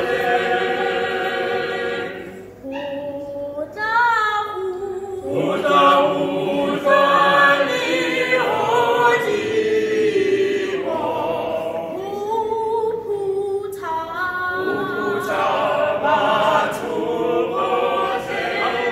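A small mixed group of teenage voices, girls and boys, singing a cappella in harmony, with a short break about two and a half seconds in before the voices come back together.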